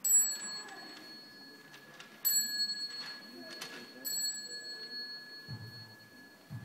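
Buddhist temple bell struck three times, about two seconds apart; each strike rings on with a long, steady, high tone that carries through the whole passage.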